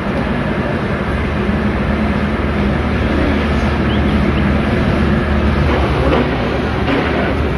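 Steady low motor drone with a constant hum and a noisy wash over it, even throughout.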